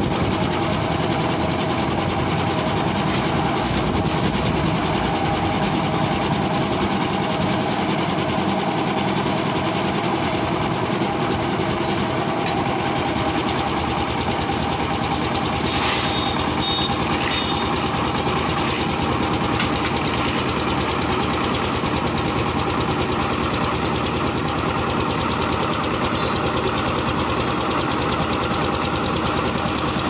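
Concrete mixer machine's engine running steadily with the mixer drum turning, an even mechanical drone.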